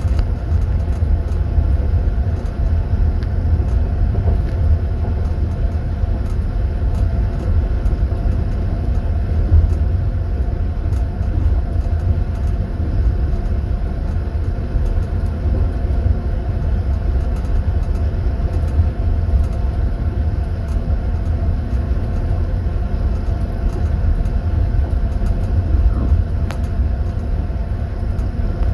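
Passenger train running, heard from inside a sleeper compartment: a steady low rumble of the wheels and carriage, with faint, scattered clicks.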